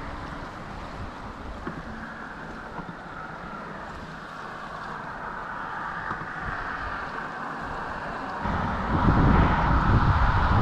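Wind buffeting the microphone over a steady outdoor rushing noise, the buffeting growing much louder and heavier about eight seconds in.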